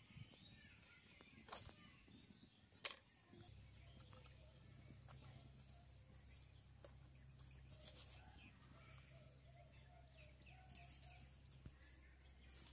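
Near silence broken by two sharp plastic clicks about a second apart, the second louder, from the snap-on lids of a plastic spice box being handled. A faint low hum sets in after about three seconds.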